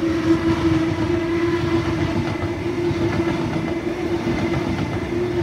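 Sydney Trains OSCAR H-set double-deck electric multiple unit passing close by: a loud, even rush of wheels on rail with a steady hum running through it.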